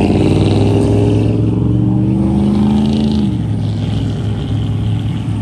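Ford pickup truck's engine revving: its pitch climbs for about three seconds, then drops back. The truck has an exhaust leak.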